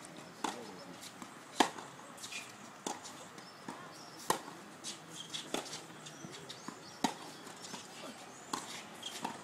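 Tennis rally: a ball struck back and forth with rackets, a sharp pop about every 1.4 s, seven in all.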